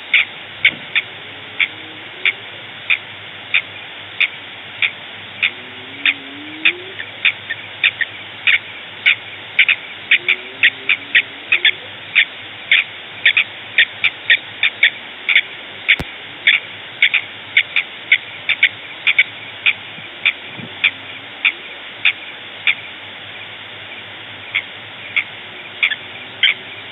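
A night chorus of short, high chirping calls from small animals, repeating about twice a second without a break, with a few faint lower gliding calls under it and a single sharp click about halfway through.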